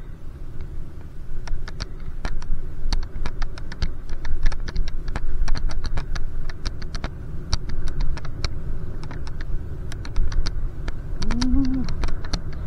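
Low wind rumble and rolling noise from riding a bicycle, with many sharp, irregular clicks and ticks throughout.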